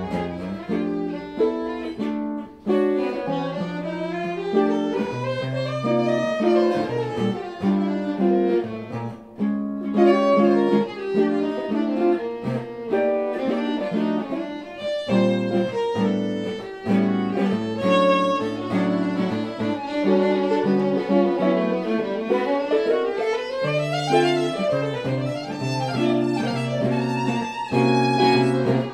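Violin and electric guitar playing jazz as a duo: the bowed violin carries the melody and sweeping runs up and down over the guitar's plucked chords and bass notes.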